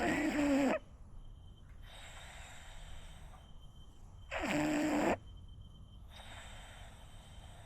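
French bulldog snoring in its sleep: two loud snores, one right at the start and one about four seconds in, each under a second long, with quieter breaths between them.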